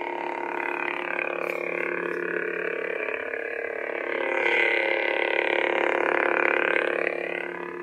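Ultrasabers Electrum Wind lightsaber's soundboard hum, a steady buzzing drone, swelling louder from about four seconds in to about seven seconds as the saber is moved.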